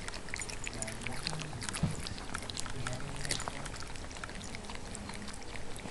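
Siberian husky puppies eating from a metal bowl: irregular crunches, clicks and rattles of food against the bowl.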